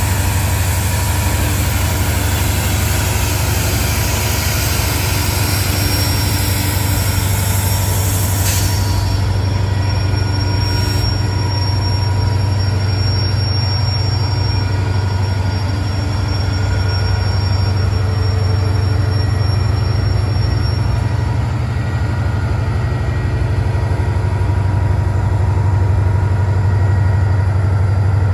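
Rebuilt EMD GP40 diesel locomotive moving off slowly, its engine running with a steady low drone. A thin high-pitched wheel squeal on the rails comes in about six seconds in and fades out about two-thirds of the way through.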